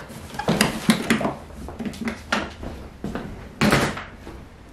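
A 1970s coffin-shaped hard guitar case being lifted and carried off, knocking and clattering several times, with the loudest bump about three and a half seconds in.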